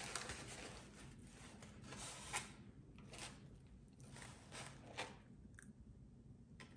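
Faint rustling and crinkling of a paper liner and a foam takeout clamshell being handled, with a few soft, separate crinkles and taps.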